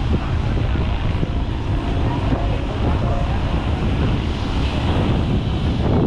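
Wind buffeting the microphone, a steady low rumble, over the wash of ocean surf.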